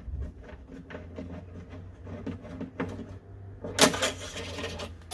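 Small irregular clicks and scrapes of fencing wire and a fuel-pickup nipple being worked through a plastic diesel-heater fuel tank, with a louder scrape about four seconds in. A steady low hum runs underneath.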